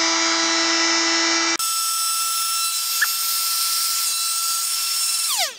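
Electric heat gun shrinking heat-shrink tubing, its fan motor running with a steady whine. About a second and a half in the whine jumps abruptly to a much higher pitch, and near the end it slides down in pitch as the gun is switched off and winds down.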